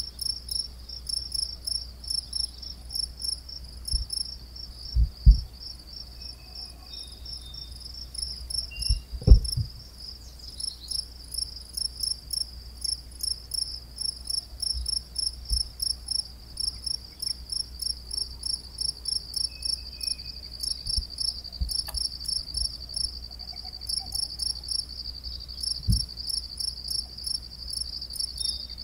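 Crickets chirping in a steady, rapid rhythm of about three chirps a second, with a few low thumps, the loudest about nine seconds in.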